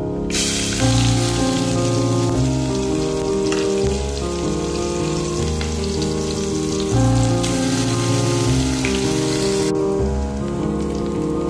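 Chopped onions sizzling in hot oil in a pot, a steady frying hiss that starts as they go in and stops near the end. Background music with held chords runs underneath.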